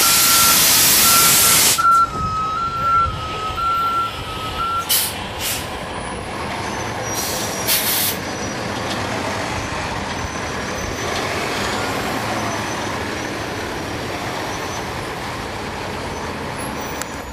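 Loud compressed-air hiss from a NABI transit bus's air system for about two seconds, with a repeating warning beep that stops about five seconds in. A few short air hisses follow, then the bus's Cummins ISL9 diesel engine runs steadily.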